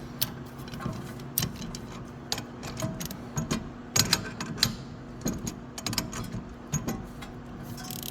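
Irregular metallic clicks and ticks of hand tools working a rear brake caliper, as the piston is pushed back in while the spline shaft behind it is turned clockwise with a T45 bit, over a faint steady hum.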